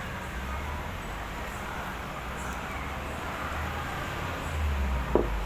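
Steady low rumble of background traffic and ambient noise, with one sharp click near the end.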